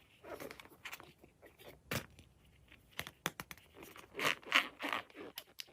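Hands handling balloons and slime-making materials: irregular rustling, scraping and crinkling with small clicks, busiest about four to five seconds in.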